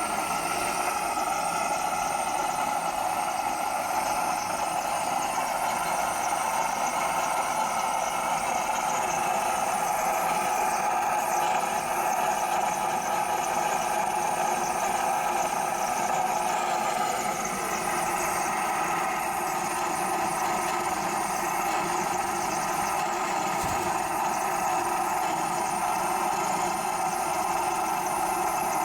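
Waste oil burner running steadily, burning sump oil with a little compressed air fed in from a regulator.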